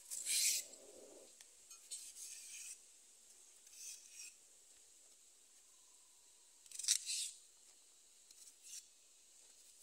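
Kitchen knife scraping and stripping the fibrous skin off taro stems: about six short, rasping strokes, the loudest about half a second in and about seven seconds in.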